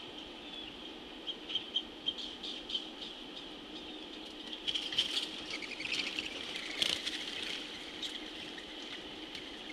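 Small birds chirping with short, sharp calls, a few scattered at first and then a busier cluster of chips and chatter about five to seven seconds in, over a steady high drone.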